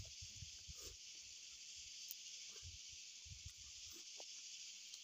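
Faint steady high hiss with scattered soft low thumps and small clicks from eating by hand and chewing.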